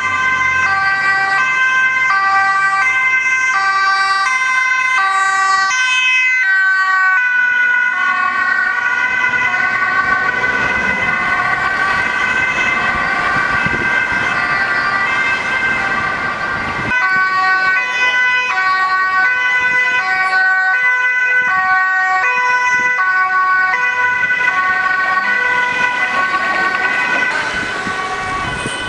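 Dutch ambulance two-tone siren alternating between a high and a low note, over traffic noise. The sound breaks off abruptly about halfway through and picks up again.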